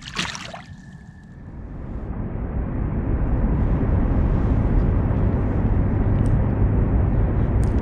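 A brief splash as a released blue catfish drops back into the water, then a steady low rumble that swells over the next few seconds and holds loud to the end.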